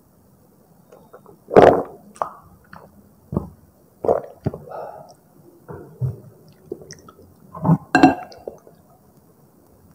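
Close-miked eating of Indomie goreng rendang fried instant noodles: irregular wet chewing and mouth sounds. There is a brief clink of a utensil against the dish about eight seconds in.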